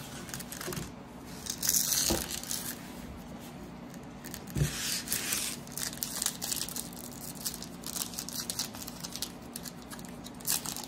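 The foil wrapper of a basketball trading-card pack being torn open and crinkled by hand, with two louder rips about two and five seconds in and small crinkles between them.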